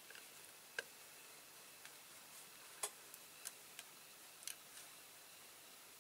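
Near silence with a few faint, short clicks at uneven intervals, the sharpest about a second in and near the middle.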